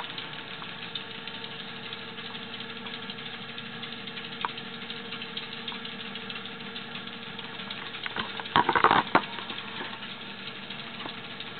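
Treadmill running with a steady motor hum, and a brief louder clatter about eight and a half seconds in.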